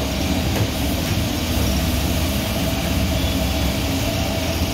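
Steady low roar of a restaurant wok burner firing under a wok of soup at a rolling boil.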